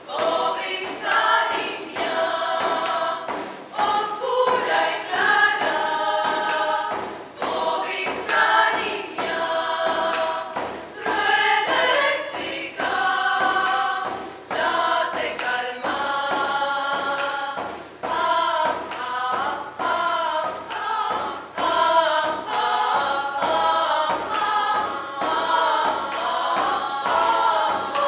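Women's choir singing in several-part harmony, held chords shifting every second or so, over a steady hand-drum beat.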